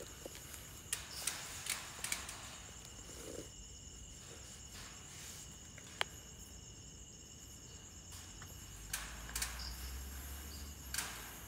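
Insects trilling steadily outdoors in a continuous high-pitched chorus, with scattered faint knocks and clicks, including a sharp click about six seconds in.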